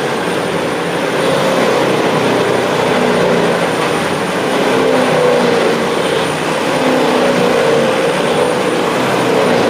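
Vermeer TG5000 tub grinder running under load as it grinds palm tree trunks. Its diesel engine and grinding mill make a loud, steady drone whose pitch wavers slightly up and down.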